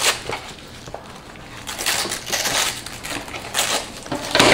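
Gift packaging being opened and handled on a table: several bursts of rustling and crinkling with light knocks, the loudest near the end.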